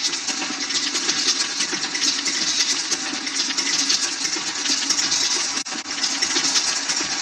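Large stadium crowd noise, a dense steady hubbub of many voices, briefly cut off about five and a half seconds in.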